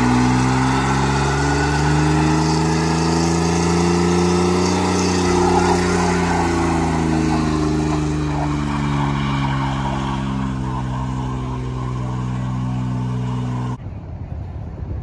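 Chevrolet S-10 pickup doing a burnout: the engine is held at high revs, its pitch slowly rising and falling, while the spinning rear tyre hisses on the pavement. The sound cuts off suddenly near the end, leaving wind on the microphone.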